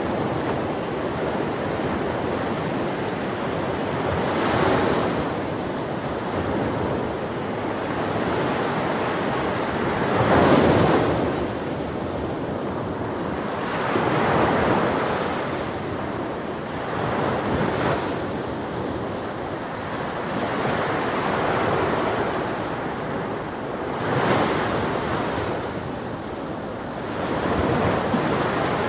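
Ocean surf on a beach: a continuous wash of water with waves breaking more loudly every few seconds.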